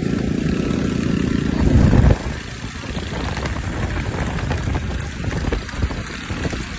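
Wind buffeting the microphone with a low road rumble, recorded while moving fast on an open road. The low rumble is heaviest for the first two seconds and drops away suddenly, leaving lighter wind noise with scattered knocks.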